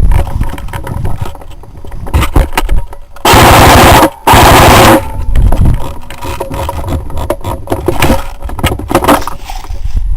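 Two bursts of full-auto fire from an airsoft gun right at the microphone, each well under a second and loud enough to clip, about three and four seconds in. Scattered knocks and rustling of movement come before and after.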